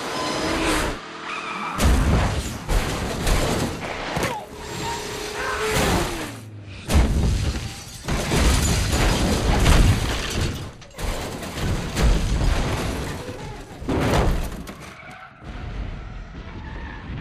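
Movie sound effects of a multi-vehicle highway crash: a string of loud metal impacts and breaking glass, with skidding tyres and booms between them.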